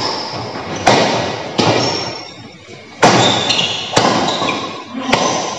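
Badminton rally: sharp racket strikes on the shuttlecock, about six at irregular intervals of roughly a second, each ringing on in an echoing hall.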